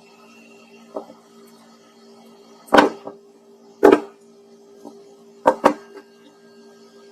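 Sharp handling knocks and clicks on a workbench as salvaged laptop battery cells are picked up and tested: two loud knocks about a second apart, then a quick double click, over a steady low hum.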